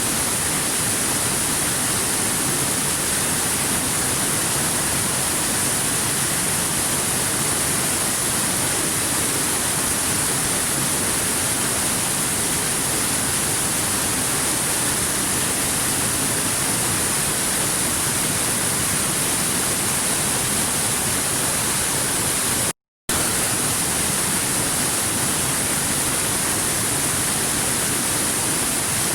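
Stream water rushing over rocks: a steady, even hiss with a bright treble edge, briefly cut to silence by a dropout about three-quarters of the way through.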